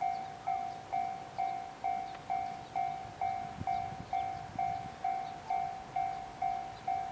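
Japanese railway level crossing warning bell ringing: a steady electronic 'kan-kan' tone struck a little over twice a second, each strike fading before the next. It warns that a train is approaching the crossing.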